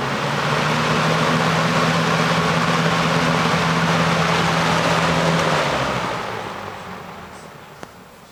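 1987 Robeson box fan with a McMillan motor running on high: a steady motor hum under a loud rush of air. About six seconds in the hum stops and the air noise fades away as the blades coast down.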